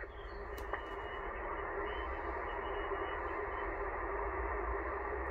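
Icom IC-720 HF transceiver's receiver hissing with band noise through its speaker on single sideband, a steady rushing static held to the narrow voice passband, with a low steady tone and a low hum beneath.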